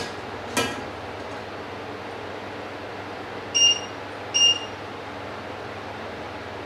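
Two short electronic beeps about a second apart, from an electric cooktop's touch controls being pressed, over a steady background hum; a single knock sounds about half a second in.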